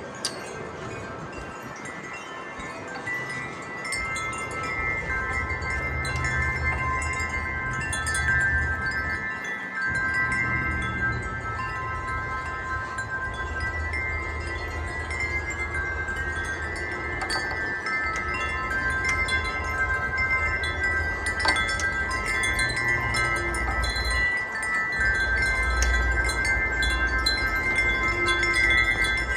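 Several tuned metal wind chimes ringing and overlapping in gusty wind. Wind rumbles on the microphone from about four seconds in, easing briefly twice.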